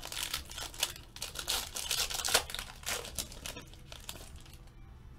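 Foil wrapper of a Panini Prizm Euro 2016 trading-card pack being torn open by hand, a run of crinkling and ripping crackles that dies down about three and a half seconds in.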